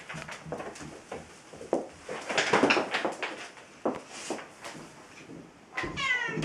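Rustling and light knocks of a kitten playing with toys on a fabric cat bed, loudest a couple of seconds in. Near the end the kitten meows once, a high call falling in pitch.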